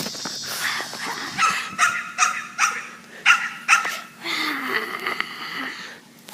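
A pet dog vocalizing excitedly: about six short, high barks in quick succession through the middle, then a longer drawn-out whine that falls in pitch near the end.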